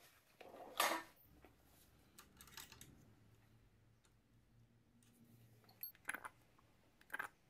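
Small clicks and clinks of hand tools and a hand-held brake bleeder being handled at a motorcycle's rear brake caliper bleed nipple: a louder rustling knock about a second in, then a few short clicks, and sharper clicks near the end.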